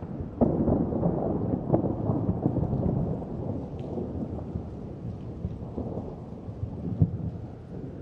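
Wind buffeting the microphone over the rush of a fishing boat's wake: a low rumbling noise that gets louder about half a second in and eases off a little toward the end.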